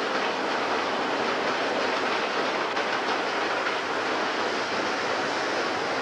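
Burlington Northern diesel commuter train with bi-level cars running through the rail yard: a steady, even noise with no distinct clicks, horn or squeal.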